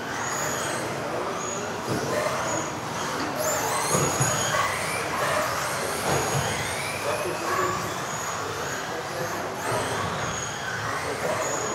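Electric off-road RC cars of the modified class racing on an indoor hall track: high-pitched motor whine that keeps rising and falling as they accelerate and brake, over a running wash of wheel and chassis noise, echoing in the hall.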